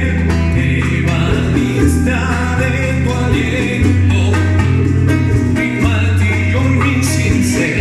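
Latin band music: plucked guitar over a moving bass line, with steady percussion.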